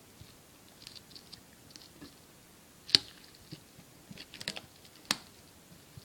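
A metal card tin being handled and opened: scattered small clicks and crinkles, with a sharp snap about three seconds in, a quick run of clicks a little later, and another sharp click about five seconds in.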